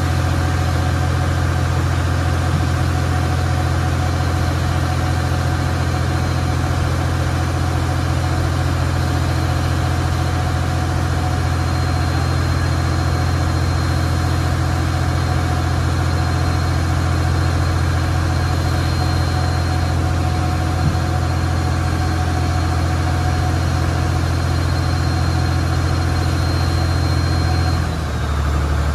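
Riverboat's engine running steadily while under way, a loud, even, deep drone; its note shifts just before the end.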